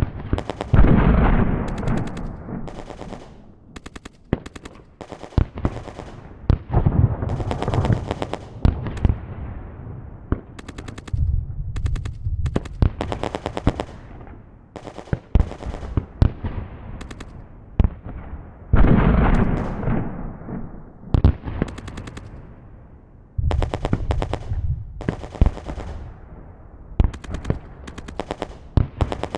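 A run of gunfire sound effects, one clip after another: rapid strings of shots like automatic-weapon fire, mixed with single shots. Two heavy booming shots, about a second in and again about 19 s in, ring out with long fading tails.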